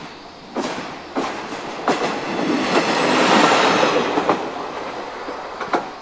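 A train passing on the rails, its wheels clacking over the rail joints. The sound grows to its loudest about halfway through, then fades.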